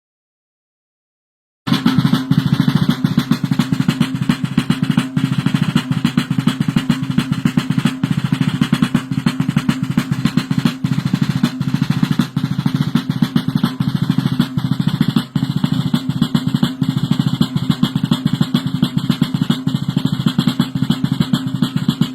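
Snare drum beating a long, continuous roll, starting suddenly about two seconds in after dead silence.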